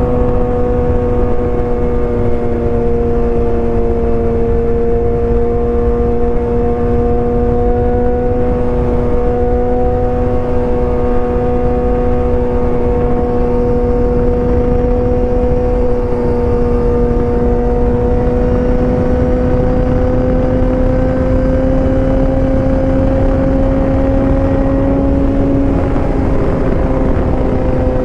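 BMW S1000R's inline-four engine running loud at steady high revs, its pitch creeping slowly upward and dipping briefly near the end.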